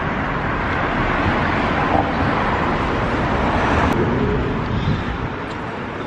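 City street traffic noise: a steady rush of passing cars that swells in the middle and eases off near the end.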